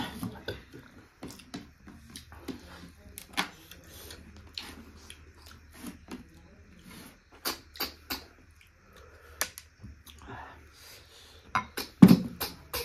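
Close-up eating sounds of snail curry: irregular wet mouth noises of chewing and sucking, broken by sharp clicks and knocks, with the loudest cluster near the end.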